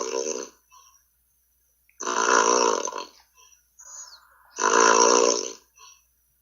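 A man snoring heavily, heard through a Skype call: rough, pitched snores about a second long every two and a half seconds. One ends just after the start, then two more follow.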